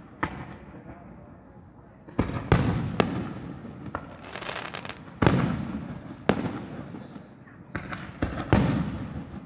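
Aerial firework shells bursting overhead: about eight sharp booms, several in quick pairs, each trailing off in a long rolling rumble. About four seconds in there is a stretch of hissing crackle.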